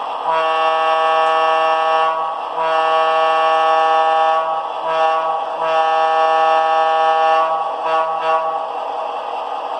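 Model locomotive sound decoder playing a recorded Wabco E2 single-note air horn: a series of long, steady blasts with short breaks and one short toot in the middle.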